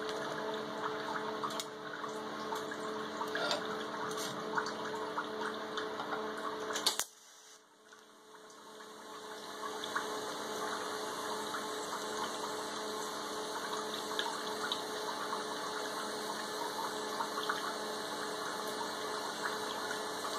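Steady hum and trickle of water from an aquarium-pump cooling loop running through a water-cooled TIG torch. About seven seconds in there is a sharp click and the level dips for a second, then the DC TIG arc on steel runs with a steady hiss and crackle.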